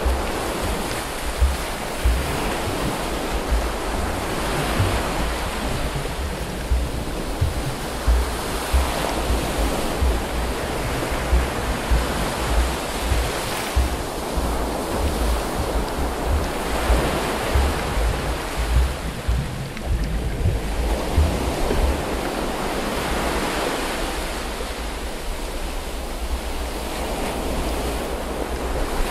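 Water rushing and sloshing around a camera held just under the surface while snorkeling. The noise swells every few seconds, with frequent short low thumps.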